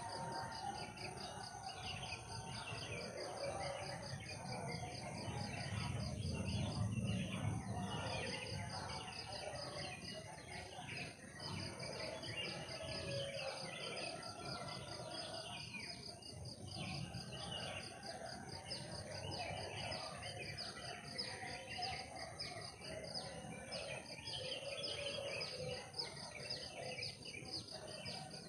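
Forest ambience: insects chirp in a steady fast pulse with a constant high drone above it, while birds call now and then. A low rumble swells and fades a few seconds in.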